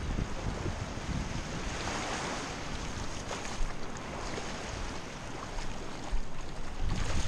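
Wind buffeting the microphone over small waves washing up onto a sand and pebble shore, with a swell of wash about two seconds in.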